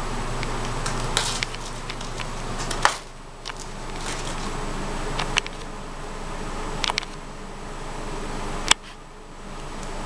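Newspaper crinkling and tearing as a bronze-winged Pionus parrot shreds it with its beak, with about five sharp snaps of paper spread through, over a steady hum.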